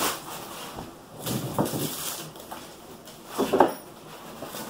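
Rustling and knocking as parts are handled in a cardboard shipping box, with a louder clunk about three and a half seconds in.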